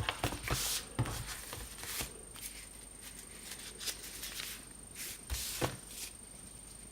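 Paper leaflets and cardboard packaging being handled: scattered rustles with small knocks and clicks, the loudest rustles about half a second in and near the end.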